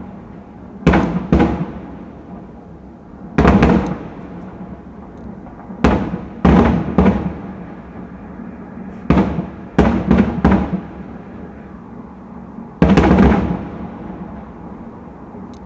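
Fireworks salute: shells bursting with sharp booms, about eleven in all, coming singly and in quick clusters of two to four, each trailing off in a rumbling echo.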